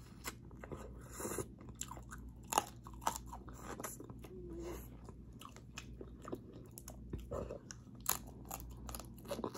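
Close-miked eating of a seafood boil: chewing and biting with many small crunching clicks and wet mouth sounds.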